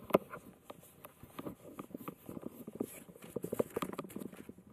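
Irregular knocking and rubbing from a handheld camera being carried and swung about: several sharp clicks a second, with a louder knock just after the start.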